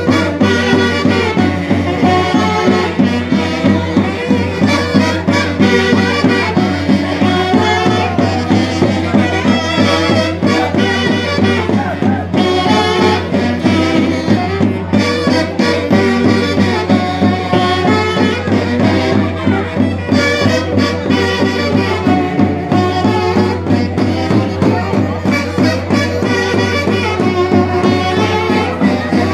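Lively folk band music with wind instruments, possibly horns, over a quick, steady beat.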